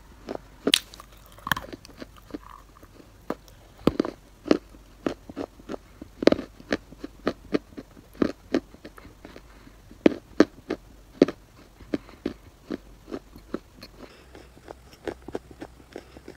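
Close-miked chewing of crunchy chalk clay in the mouth: a steady run of sharp crunches, about two or three a second and unevenly spaced.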